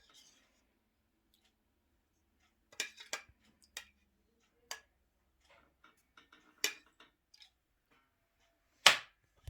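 Scattered light clicks and taps of a kitchen utensil against a dish, a dozen or so at uneven intervals, with the sharpest knock near the end, as tomato sauce is spread around the edge of a duck in its roasting dish.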